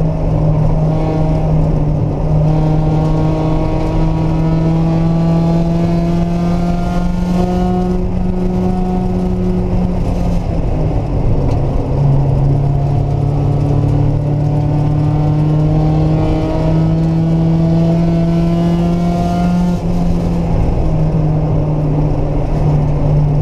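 Mazda Miata's four-cylinder engine under hard acceleration, heard on board: the engine note climbs steadily for about nine seconds, dips briefly about halfway through, then climbs again for another eight seconds, over a steady low drone.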